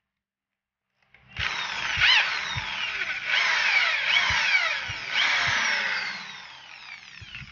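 Electric drill boring out a stripped bolt hole in a Yamaha Mio Sporty scooter's engine casing, to take a thread repair insert. The drill runs in three pulls of about two seconds each, its pitch sliding down within each one, and it fades out near the end.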